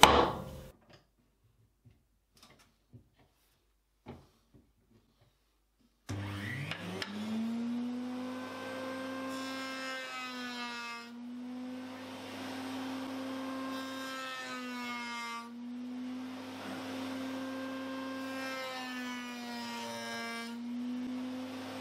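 Table-mounted router with a large 45-degree chamfer bit starting up about six seconds in, rising to speed, then running steadily while a Zebrano board is pushed past the cutter. Its pitch sags briefly several times under the cut. Before that there is a clatter of wood at the very start, then near silence with a few small taps.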